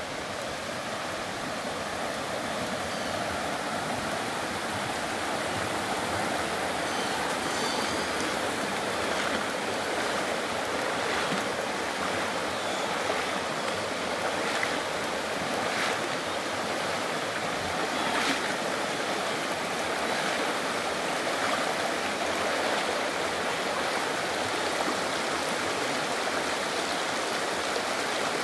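Shallow mountain creek rushing over rocky riffles and boulders: a steady, even rush of water that builds slightly over the first few seconds.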